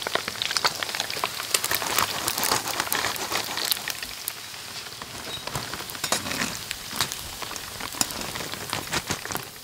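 Chicken pieces deep-frying in a wok of hot oil, crackling with dense small pops. The crackle thins out about halfway through as the pieces are lifted out of the oil in a wire skimmer.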